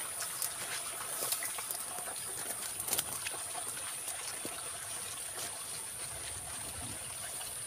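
Outdoor ambience among tea bushes: a steady high-pitched hiss over a faint, even background, with a few scattered light clicks and rustles.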